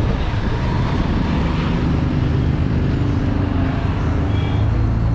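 Road traffic: engines of vehicles passing on the road, a steady rumble with shifting engine hum that grows a little stronger near the end.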